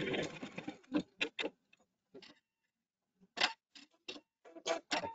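Pfaff embroidery machine's stitching winds down and stops just after the start, followed by scattered light clicks and knocks with quiet between them.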